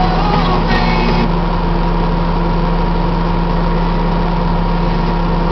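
Heavy diesel engines of a Caterpillar 330B excavator and a Cat articulated truck running steadily while the excavator loads the truck, with a brief higher noise about a second in.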